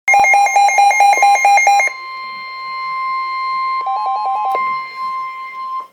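NOAA Weather Radio 1050 Hz warning alarm tone, a steady shrill single tone that stops abruptly near the end. It signals that a severe weather warning message follows. A rapid two-pitch beeping warble rides over it for the first two seconds and again briefly around four seconds in.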